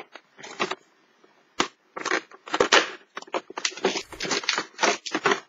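Opening a cardboard Kinder chocolate advent calendar door and pulling out the chocolate in its plastic wrapper: an irregular run of crackles and crinkles.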